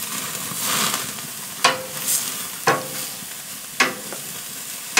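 Center-cut pork chops sizzling as they sear on a very hot grill grate, with four sharp metallic clicks about a second apart as tongs handle the chops on the grate.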